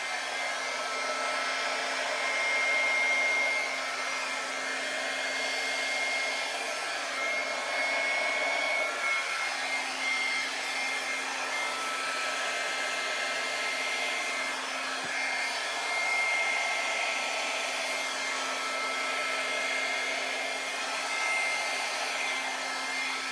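Handheld hair dryer running steadily, a continuous rush of blown air with a thin steady high whine.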